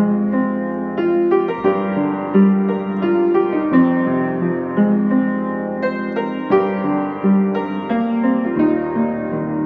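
Solo piano playing a melody over chords, a new note or chord struck about every half second to a second and each left ringing.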